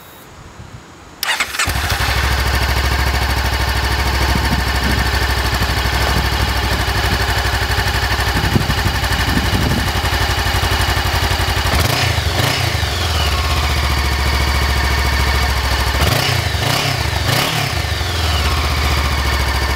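Honda CBR500R's parallel-twin engine started about a second and a half in, then idling steadily, with the throttle blipped to rev it up and back down once about twelve seconds in and again a few seconds later.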